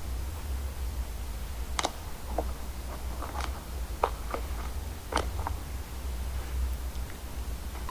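Slime being squeezed and worked by hand, making a series of small irregular clicks and pops, with a steady low hum underneath.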